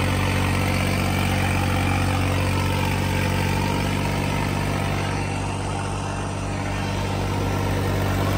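New Holland 5620 tractor engine running steadily under load as it pulls a super seeder, with the seeder's rotor churning through loose soil.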